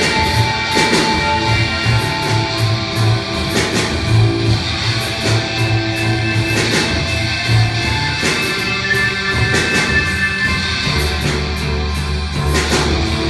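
Rock instrumental played live by a robot band: guitar notes over a steady drum beat.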